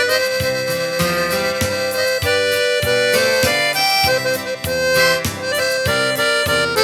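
Instrumental break of a sertanejo song: an accordion plays the melody over a steady, rhythmically strummed guitar accompaniment.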